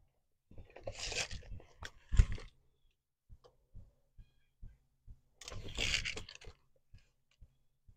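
Wooden board being handled against a wooden door frame: two stretches of scraping and rubbing, with a sharp knock of wood on wood about two seconds in.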